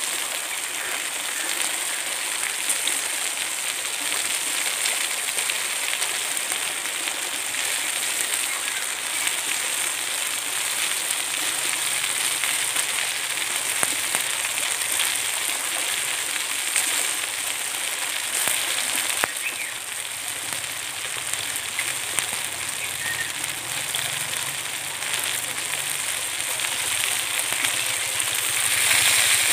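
Chicken pieces and vegetables sizzling on a stone slab heated over a wood fire, a steady hiss with occasional sharp crackles.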